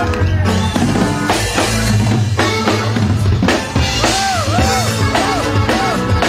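Norteño band playing an instrumental passage: a Gabbanelli button accordion carries the melody over drum kit and bass, with a run of quick rising-and-falling notes about four seconds in.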